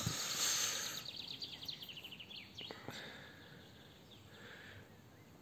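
Nylon tent door being unzipped: rustling fabric, then a quick run of zipper-tooth clicks that fades out. Faint bird chirps follow.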